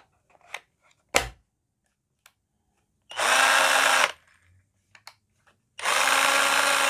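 Corded electric drill converted to run on an 18-volt battery, run unloaded in two bursts of about a second each at a steady speed. A sharp click comes about a second in.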